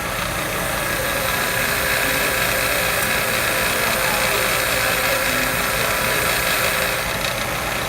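Steady mechanical running noise with a constant hum, a little louder through the middle.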